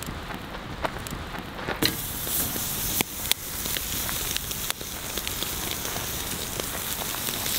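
Open campfire crackling with scattered sharp pops, and a sizzling hiss of cooking that grows stronger about two seconds in.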